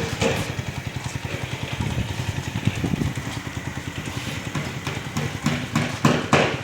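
Honda CD 70's single-cylinder four-stroke engine idling with a rapid, even beat. Two brief louder bursts come near the end.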